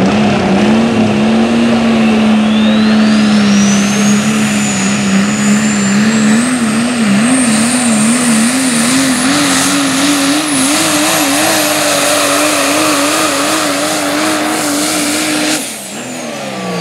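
Super stock diesel 4WD pulling truck under full load: a steady engine note that wavers in pitch partway through and then climbs, with a turbocharger whistle rising to a very high pitch and holding. Near the end the engine is let off and the note and whistle fall away.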